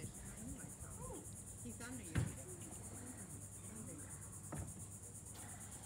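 A steady, high-pitched insect chorus, pulsing evenly, with a single sharp knock about two seconds in.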